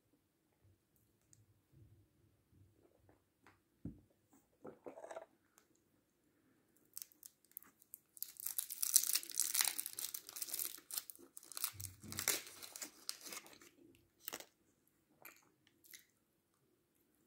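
Foil candy wrapper crinkling as a round chocolate candy is unwrapped, a dense crackling lasting about seven seconds in the middle. Before and after it come a few soft mouth clicks.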